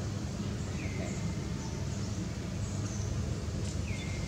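Outdoor ambience: a steady low rumble, with two faint, short, high chirps that fall in pitch, about a second in and near the end.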